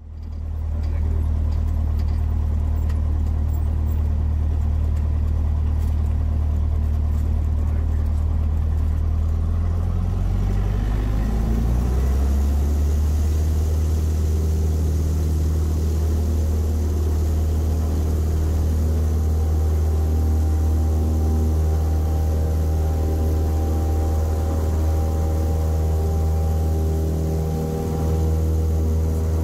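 Cessna 172S's four-cylinder Lycoming IO-360 engine and propeller, heard from inside the cabin. It runs low at first, then about ten seconds in the throttle is advanced and the engine note rises and holds steady at takeoff power for the takeoff roll, with a brief dip near the end.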